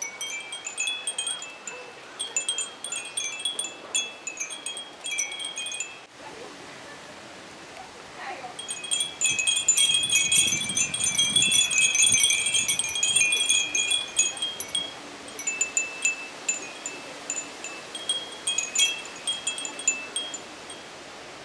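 Many Japanese furin wind bells tinkling together, with irregular clusters of high, bright ringing notes. They fall quiet briefly about six seconds in, ring densely for several seconds, then thin out to scattered tinkles near the end.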